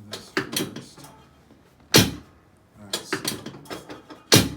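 Two sharp thuds of chiropractic adjustments on a treatment table, about two seconds apart, each coming after a brief spell of softer clicks and creaks.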